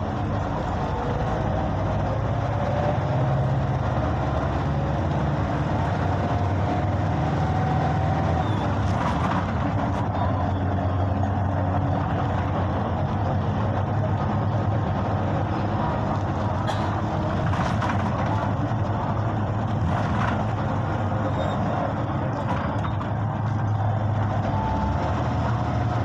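Inside a moving city bus: the engine hums steadily under an even wash of road and tyre noise as the bus drives along, with a few brief clicks or rattles.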